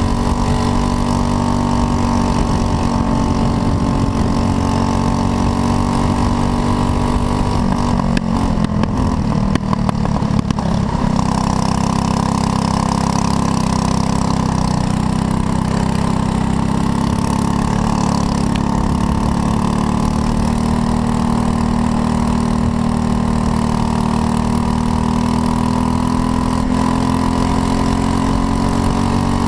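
Racing kart's engine running hard at high revs, heard close-up from the kart itself, a steady pitched buzz. About eight seconds in the pitch wavers and dips roughly for a couple of seconds, then picks up and holds high again.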